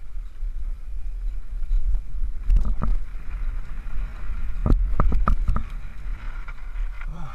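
Heavy wind rumble on the microphone, with a run of sharp knocks about halfway through.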